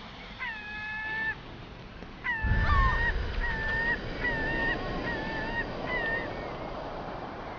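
Gulls calling, a series of short, flat, pitched cries one after another, over a steady background hiss, with a brief low rumble about two and a half seconds in.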